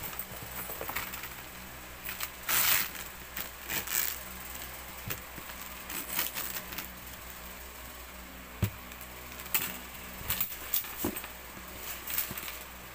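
A quilted black handbag being handled and shifted on a tabletop: scattered rustles, light knocks and clicks, with a louder rustle about two and a half seconds in.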